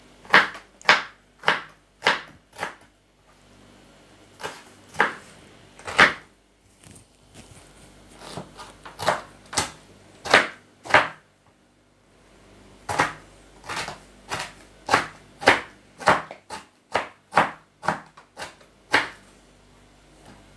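Chef's knife chopping sauerkraut leaves on a wooden cutting board: a run of sharp knocks, often about two a second, each blade stroke striking the board, with short pauses a few seconds in and about halfway through.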